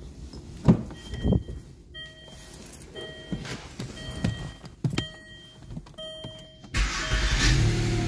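Two knocks, then a car's warning chime beeping about once a second, five or six times. About seven seconds in, a 2008 Land Rover LR2's engine cranks, starts and keeps running.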